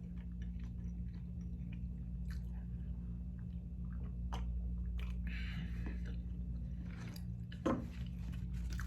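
A person chewing a bite of Flamin' Hot Cheetos sushi roll close to the microphone: soft, wet mouth sounds with scattered small clicks.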